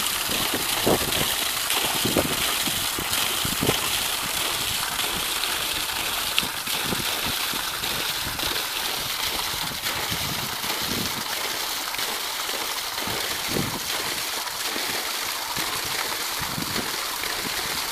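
Water gushing from a plastic pipe onto rocks and running down a small stony stream: a steady rushing splash.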